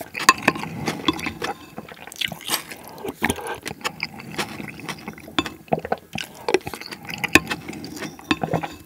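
Close-miked eating sounds: a wooden spoon scraping and clicking against a ceramic bowl as rice soup (dwaeji gukbap) is shovelled straight from the bowl's rim into the mouth, with wet slurping and chewing throughout. These are the last spoonfuls, finishing the bowl.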